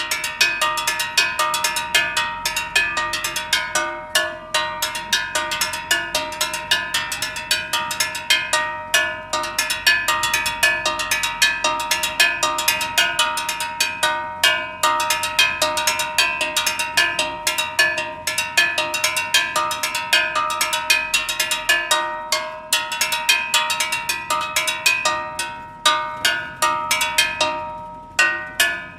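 Metal gas cylinder struck over and over in a fast, steady rhythm, each hit clanging and ringing: a gas seller's signal announcing that gas is being sold in the street. The rhythm pauses briefly a few times.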